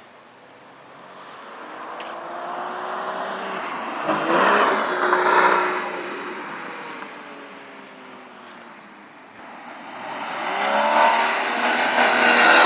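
Porsche Cayman S (981)'s 3.4-litre flat-six engine, loud twice: the sound builds over a few seconds to a peak about four to five seconds in, falls away with a dropping pitch, then builds again to a second peak near the end.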